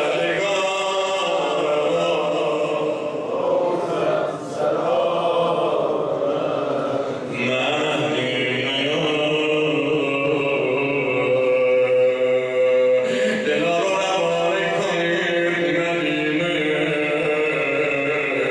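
A man chanting a Persian religious elegy (noha) into a microphone, in long held, wavering melodic phrases with short breaks for breath between them.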